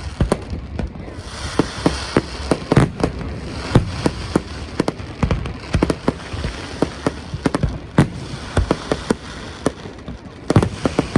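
Fireworks display going off: many sharp bangs at irregular intervals, often several a second, over a continuous crackling hiss.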